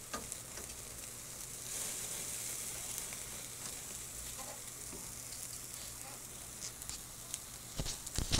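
Lobster tails and vegetables sizzling on a wire grill basket over hot charcoal, a steady hiss with scattered small pops, a little louder a couple of seconds in. A few sharp knocks near the end.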